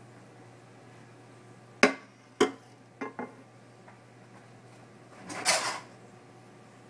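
Frying pan and spatula clanking as they are put away after plating: two sharp knocks about half a second apart, two lighter ones just after, then a short scraping clatter about five seconds in.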